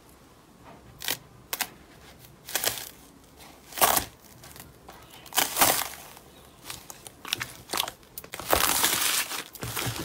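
Clear slime being pressed and kneaded into a tub of small foam beads, making irregular crunchy crackles. The crackles come a few at a time and turn into a longer stretch of crackling near the end.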